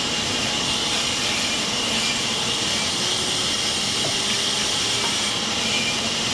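Sawmill machinery running: a steady, even noise with a strong hiss high in the range and no breaks.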